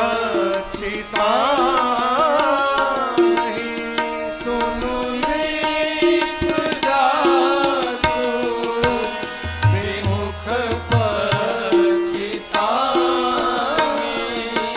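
Male devotional singing in long, drawn-out, ornamented lines over Indian instrumental accompaniment, with tabla strokes and a steady held drone.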